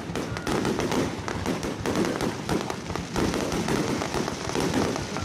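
Fireworks going off in a dense, continuous run of rapid cracks and pops.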